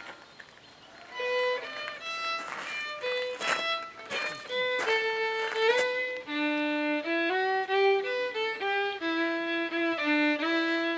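Solo fiddle playing a slow tune, one note at a time, starting about a second in; notes are held for up to about a second and move stepwise up and down.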